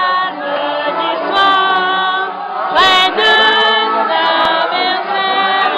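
A table of diners singing together unaccompanied, many voices holding long notes, with one note sliding up about halfway through.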